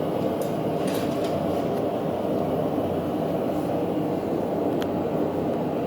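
Steady rumbling roar of a blacksmith's forge fire, unchanging.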